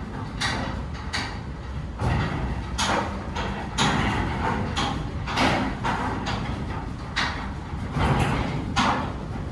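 Mechanical parking system in operation: a steady low running noise with repeated sharp knocks and clanks, irregularly spaced about every half second to a second.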